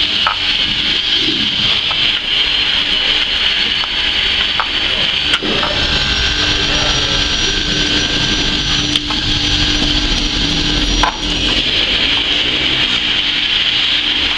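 Handheld electric fish scaler running, its spinning head scraping the scales off a fish with a steady, high rasping whirr, broken by a few sharp clicks.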